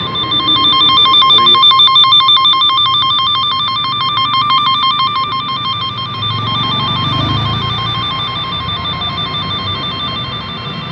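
Electronic warbling tone from a cut-wire harness tester, sounding while its probe is on a wire that still has continuity. It is loudest for the first few seconds, then grows fainter.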